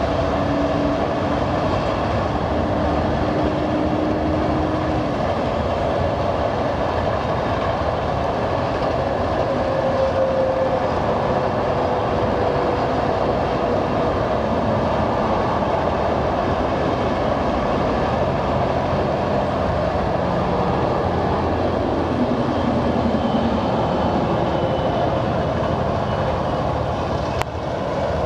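Freight train of autorack cars rolling past, a steady rumble of steel wheels on the rails with faint humming tones from the wheels that drift slightly in pitch.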